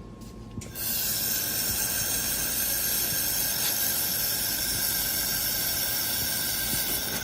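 Handheld 3-in-1 laser welding machine laying a weld seam: a steady hiss with several steady high tones. It starts abruptly under a second in and stops near the end.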